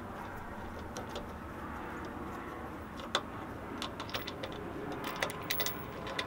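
Small metal clicks and clinks as a nutsert installation tool's nut and washers are spun off and pulled away from a freshly set nutsert, over a steady background hum: a single click about three seconds in, then a quick run of clicks near the end.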